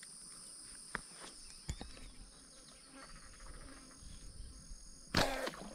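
Steady high buzzing of insects, with a few faint ticks. About five seconds in comes one short, sharp burst: a slingshot fishing arrow shot into the water.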